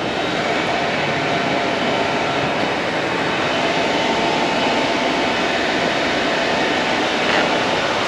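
2023 Yamaha MT-10's crossplane inline-four engine running steadily on the move, with a continuous rush of noise under it.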